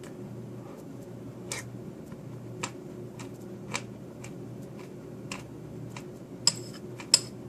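A spoon clinking against a bowl of cream of rice a few separate times, with two louder clinks near the end, over a steady low hum.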